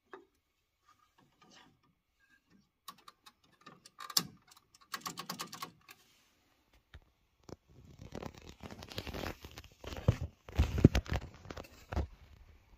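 Small plastic clicks and rattles as a replacement tray pickup roller is handled and pushed onto its shaft in an HP PageWide printer's tray bay. From about halfway through, louder knocks and rubbing of hands and plastic parts inside the printer.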